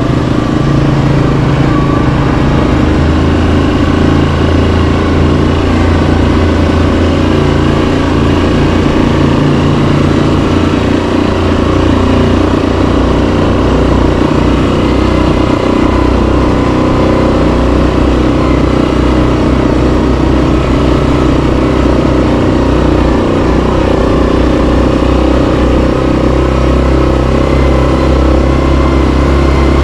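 Yamaha Kodiak 700 ATV's single-cylinder four-stroke engine running while trail riding, its pitch stepping up and down a few times with the throttle.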